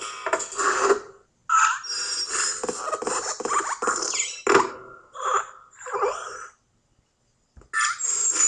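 Cartoon sound effects of an animated desk lamp hopping: springy metallic squeaks and creaks with sharp knocks as it lands, in short bursts, pausing for about a second before a last burst near the end.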